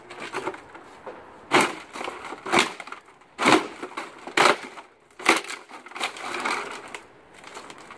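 A boot stomping on a broken flat-screen TV about five times, roughly once a second, the plastic casing and screen layers cracking and crunching under each blow.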